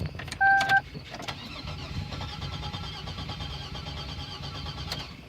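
A brief steady warning chime about half a second in, then the starter of a 2001 Chevrolet's 3800 V6 cranking the engine for about four seconds. It now cranks because a blown 10 A PCM crank fuse was replaced, but it does not catch, which the owner puts down to the fuel relays.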